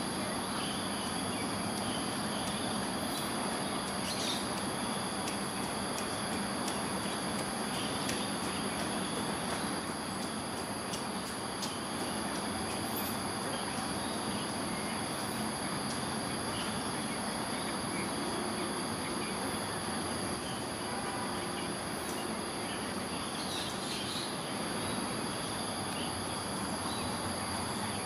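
Outdoor insect chorus: a steady, high-pitched shrill of insects at several pitches, over a steady background noise.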